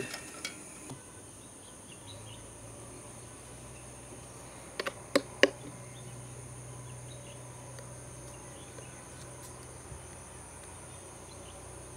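Steady high chirring of insects such as crickets, with a low steady hum coming in about two seconds in. Three sharp knocks sound close together about five seconds in.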